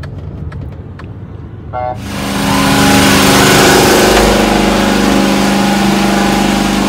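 Low road rumble inside a moving car's cabin, with a few light clicks. About two seconds in it cuts abruptly to a loud, steady running-engine noise with a constant hum.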